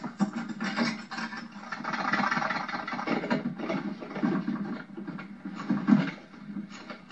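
A rotary telephone being dialled, its dial clicking and whirring as it is turned and let run back.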